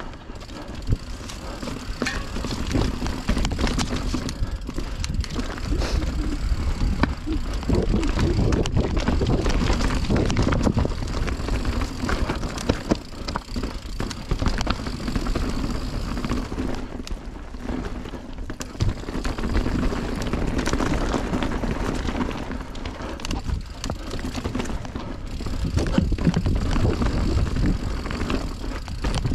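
Mountain bike ridden along a dirt trail: steady tyre noise with rattles and sharp clicks from the bike over rough ground, and heavy wind rumble on the microphone.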